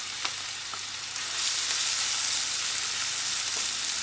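Diced onion sizzling in hot vegetable oil in a frying pan, the sizzle growing louder about a second and a half in as it is stirred with a wooden spatula. A couple of light knocks come in the first second.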